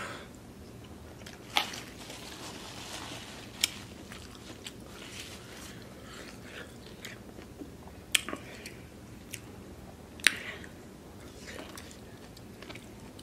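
Close-up eating sounds: a person chewing food with wet mouth noises, and about four sharp clicks or smacks scattered among many fainter ones.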